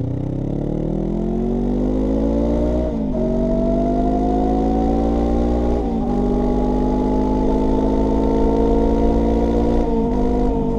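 Honda NX500's parallel-twin engine through a Black Widow UN30H slip-on exhaust, accelerating under load and shifting up through the gears. Engine pitch climbs, then drops at each of three upshifts, about 3, 6 and 10 seconds in. This exhaust is a very quiet one, close to the stock pipe in sound.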